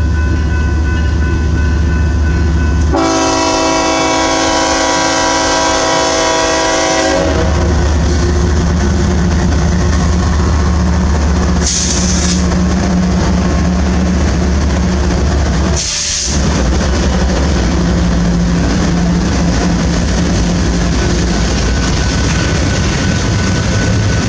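BNSF freight train's diesel locomotives droning as they approach and pass, with one long horn blast of about four seconds starting about three seconds in. The freight cars then roll by, wheels on the rails.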